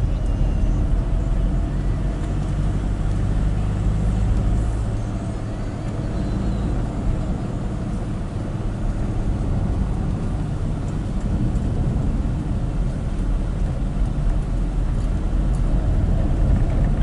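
Engine and road noise heard from inside a moving vehicle: a steady low rumble that eases slightly a few seconds in, then picks back up.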